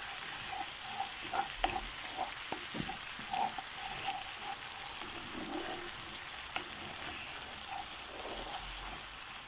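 Grated tomato, garlic and spices sizzling steadily in olive oil in a tagine as they are stirred, with a few light clicks.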